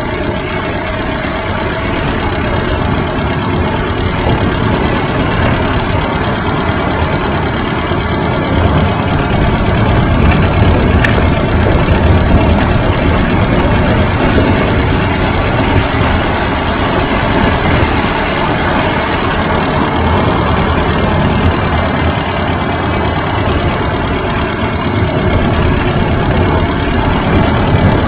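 Steady rumble of wind buffeting and road vibration on a bicycle-mounted camera rolling over rough, cracked asphalt, a little louder about a third of the way in.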